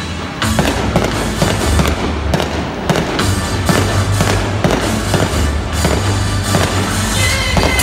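Aerial fireworks going off in a rapid string of pops and bangs, starting about half a second in. Disney theme music plays underneath.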